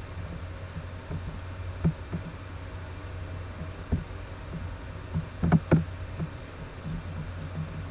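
Computer mouse clicks over a steady low hum: single clicks about two and four seconds in, then two louder clicks in quick succession a little past halfway.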